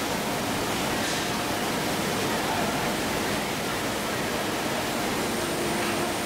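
Steady rushing noise of factory machinery on a gas-cylinder heat-treatment furnace line. A faint steady hum joins in about five seconds in.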